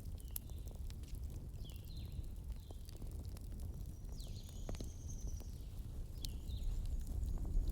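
Campfire burning: wood crackling with scattered sharp pops over a low rumble. Several short high chirps that fall in pitch sound through it, with one longer high note about four seconds in.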